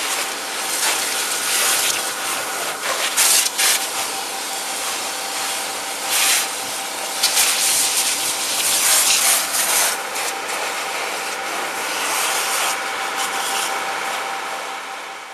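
Fire hose spraying water onto a burning car, a harsh rushing hiss that surges and eases, with a faint steady tone underneath. It fades out at the end.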